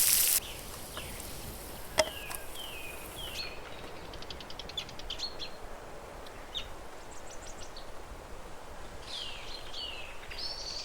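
Birds calling: short chirps that slide downward in pitch, a quick run of ticking notes, then more falling chirps near the end, over a faint outdoor background. A frying sizzle cuts off in the first half second, and there is a single sharp click about two seconds in.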